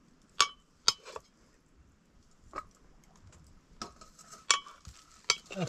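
A metal serving spoon clinks against steel plates and the rice pot while cooked rice is scooped and served. There are about eight sharp clinks at uneven intervals.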